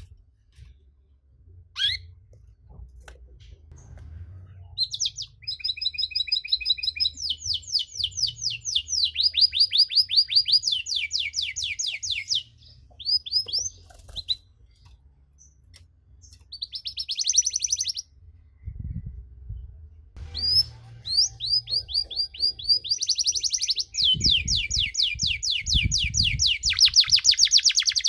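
Domestic canary singing: long rolling trills of fast repeated notes, breaking off a few times and then running into a long unbroken trill through the second half. A few soft low thumps come in under the song.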